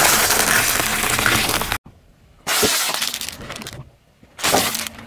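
A car tyre rolling over a pile of hen's eggs: a dense crackle of breaking eggshells that cuts off suddenly about two seconds in. Two shorter crunching bursts follow, from the tyre crushing other items.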